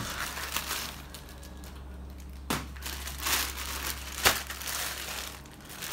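Thin clear plastic bag crinkling and rustling as it is handled, with two sharp crackles about two and a half and four seconds in, the second the loudest.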